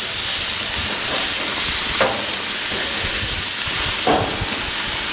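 Marinated pork chops sizzling on a hot gas grill grate, a steady hiss of fat and marinade frying. Two light clicks, about two and four seconds in, come as the tongs turn the chops.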